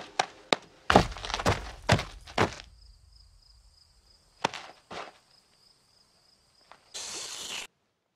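Cartoon sound effects of a bird's feet: a run of about six sharp knocks in the first two and a half seconds, like thudding steps, then two softer taps. A faint high steady tone sits under the taps, and a short hiss comes near the end.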